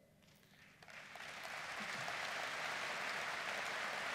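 Large seated audience applauding: after a brief hush, clapping starts a little under a second in and swells to steady applause within about a second.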